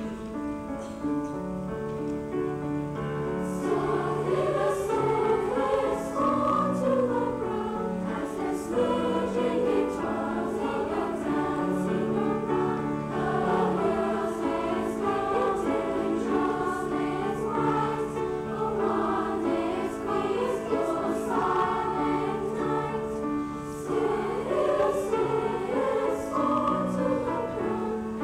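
Junior high school choir singing with piano accompaniment; after a short piano-led opening, the voices come in about three and a half seconds in and carry on singing.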